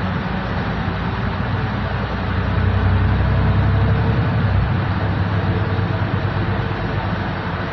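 Solaris Urbino 12 IV city bus driving, heard from inside the passenger cabin near the front: steady engine sound and road noise. The low engine sound grows louder about two and a half seconds in and eases off shortly before five seconds.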